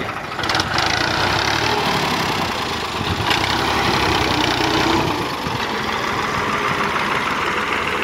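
Fiat 480 tractor's diesel engine running, getting louder about half a second in and then holding steady, with a single short knock a little after three seconds.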